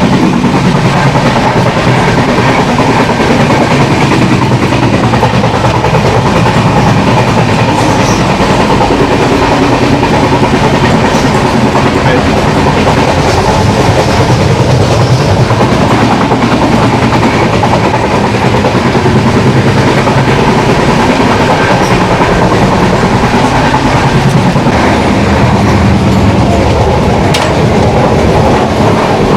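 Passenger train running on the rails: a loud, steady rumble of wheels and carriage with clickety-clack over the rail joints.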